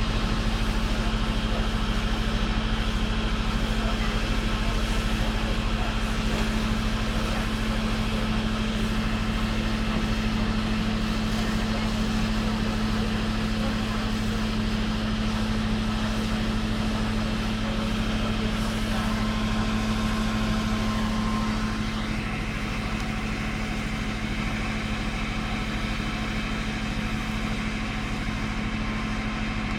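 Fire engine's motor running steadily, driving the pump that feeds the hoses; a constant hum that gets slightly quieter about two-thirds of the way through.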